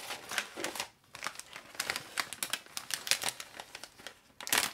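Plastic snack wrappers crinkling as hands rummage through a box of packaged snacks and lift out a snack bag, in irregular crackles with a louder crinkle near the end.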